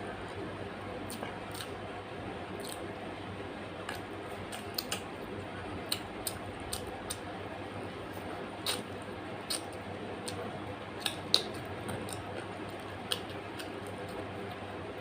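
Close-up eating sounds: irregular wet clicks and smacks of chewing and mouthfuls, the loudest a little past the middle, over a steady background hiss.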